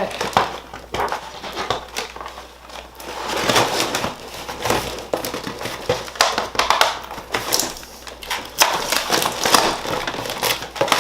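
Toy packaging being pulled apart by hand, with irregular crinkling, rustling and crackling.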